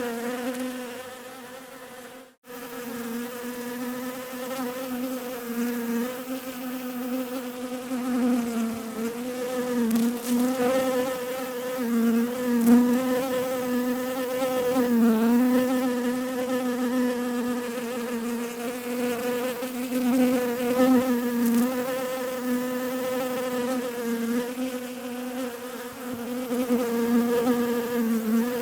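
Bees buzzing in a steady, slightly wavering hum that fades and drops out briefly about two seconds in, then comes back.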